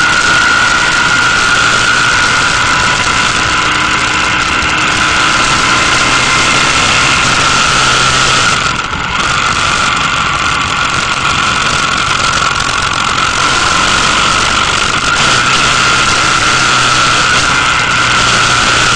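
Riding a motorcycle at road speed: constant engine and wind noise with a steady high whine running through it. It dips briefly about halfway through.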